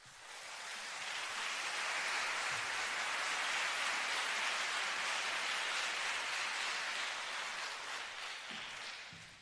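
Audience applauding, swelling over the first second, holding steady, and dying away near the end.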